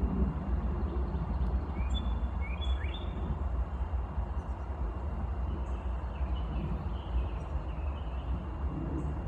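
Birds chirping: a few short, rising high chirps about two seconds in, then a wavering high call later on, over a steady low rumble.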